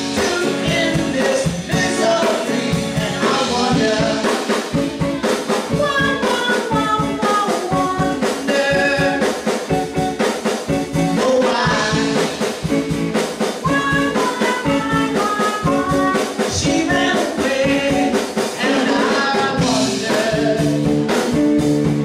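Live band playing: a woman sings lead into a microphone over electric guitar and a drum kit keeping a steady beat.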